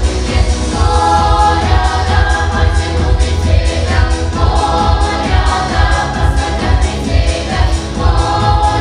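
Children's vocal ensemble singing a song together in harmony, phrase after phrase, over a steady low pulsing accompaniment.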